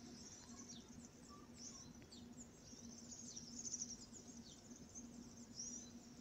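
Faint, high-pitched chirping of small birds in the open air, busiest about three to four seconds in, over a low steady hum.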